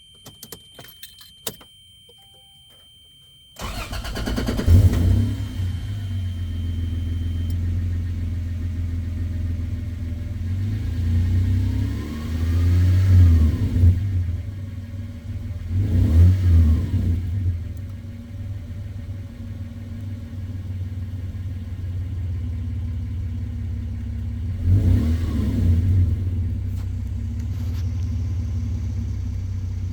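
A few faint clicks, then about three and a half seconds in the 1997 Toyota Land Cruiser FZJ80's 4.5-litre inline-six starts and settles into a steady idle, revved briefly four times. The owner is chasing a rattle or knocking noise at startup.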